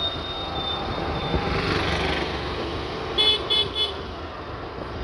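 Road traffic noise from a moving vehicle, with a vehicle horn tooting three short times about three seconds in.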